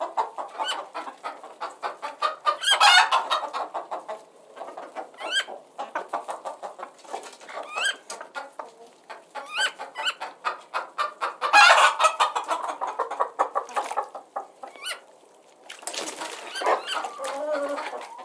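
Hen clucking in quick runs, with louder, harsher outbursts twice, while her chicks give thin, high, rising peeps.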